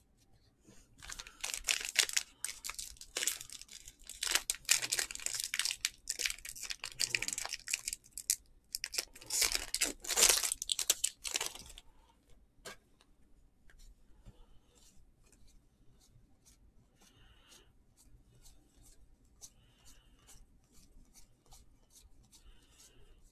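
Topps Update baseball card packs being torn open, their foil wrappers ripping and crinkling in a run of loud tears over the first dozen seconds. After that come fainter soft ticks and rustles of cards being handled.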